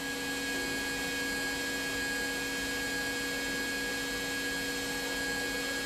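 Steady machine hum, several fixed tones over a faint hiss.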